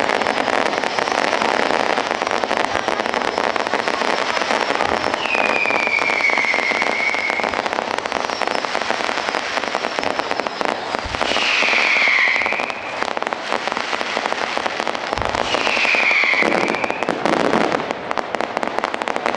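Fireworks display: a continuous dense crackling and popping, with three falling whistles and a couple of deep booms of shells bursting.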